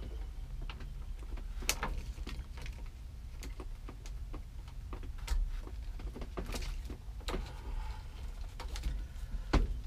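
Scattered light clicks and rattles of a key and ignition lock cylinder being wiggled to work the cylinder out of a 1967–72 Chevy C10 steering column, over a steady low hum.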